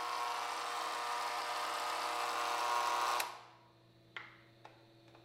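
Electric gate motor whining steadily while the gate swings open, then cutting out about three seconds in, leaving a faint hum and a few light clicks.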